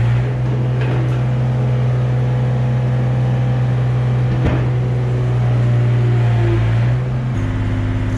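Diesel engine of a Yanmar compact excavator running steadily, then settling to a lower, changed note about seven seconds in.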